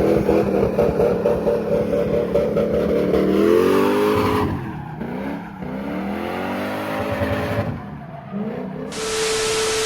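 Car engine revving hard while the car slides, held high for about four seconds, then dropping and climbing again several times as the throttle is worked. Near the end a steady hiss with one held tone, cut off sharply.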